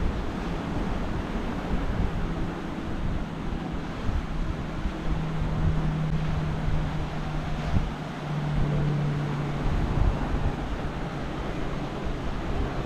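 Wind buffeting the microphone over the wash of ocean surf, with a steady low hum that grows louder around the middle.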